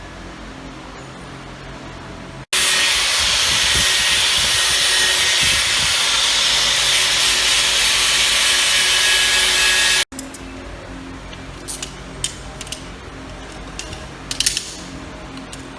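A power tool runs loudly with a steady hiss for about seven seconds, starting and stopping abruptly. Before and after it, a low hum is heard, and afterwards come scattered clicks and knocks of hand work.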